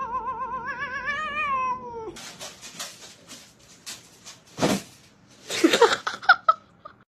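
A cat's long yowl with a fast tremble in its pitch, rising slightly before it stops about two seconds in. Then scratching and scraping in cat litter, with a few louder sudden sounds near the end.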